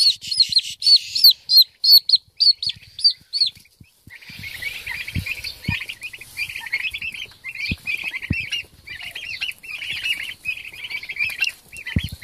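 A single turkey poult peeping loudly and rapidly, about three high calls a second, for the first few seconds. From about four seconds in, a group of turkey poults peeping together, softer and lower, with a few dull knocks.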